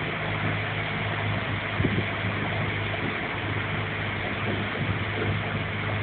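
Motorboat engine running at a steady low hum while the boat moves alongside the paddlers, with the rush of wind and water over it.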